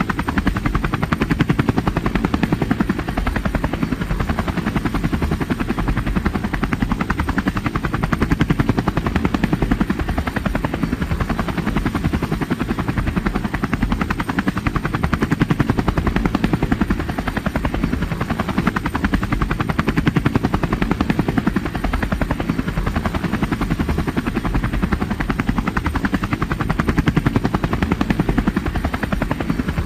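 Helicopter flying: the rapid, even chop of its rotor blades over engine noise, steady throughout with gentle swells in loudness every several seconds.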